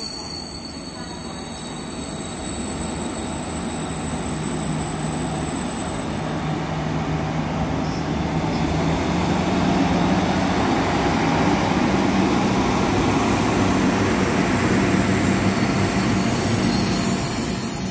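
Korail RDC Mugunghwa diesel railcar train moving through the station: steady diesel engine hum under wheel-on-rail noise that grows gradually louder.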